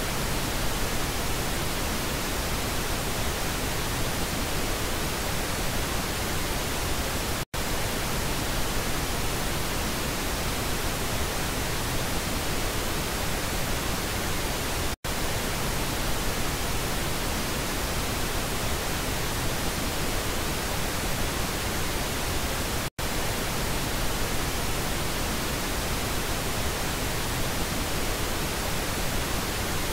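Steady pink noise test signal played as a stereo channel check, switched between the left and right speakers. It is broken by three short gaps, about every seven and a half seconds.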